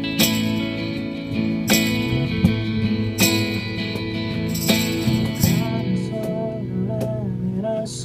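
Live acoustic band music: an acoustic guitar is strummed over keyboard chords, with cajon hits marking strong accents about every second and a half. A voice sings a short line in the second half.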